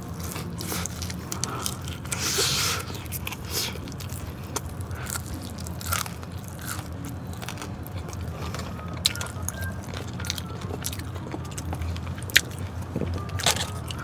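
Close-miked eating: a person biting and chewing crispy fried chicken, with repeated sharp crunches of the batter and wetter chewing between them. A faint tune starts to come in near the end.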